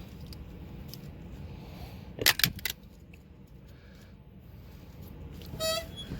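Metal tools and parts clinking and clattering during work on a broken bolt, a quick cluster of sharp metallic clinks about two seconds in, over a steady low hum. A short high squeak sounds near the end.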